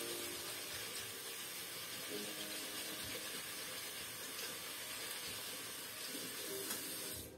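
Facial steamer giving off a steady hiss of steam, cutting off suddenly near the end.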